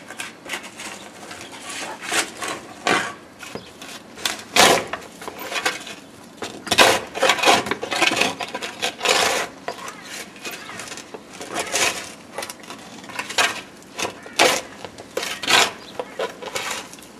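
Metal spade digging into dry soil: repeated irregular scraping chops as the blade is driven in and levered out, busiest in the middle.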